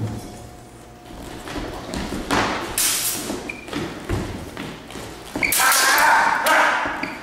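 Fencers' feet thudding and stamping on a wooden floor during a heavy sabre bout, with brief metallic rings of steel sabre blades meeting. The sound grows loudest in a rush of noise over the last two seconds.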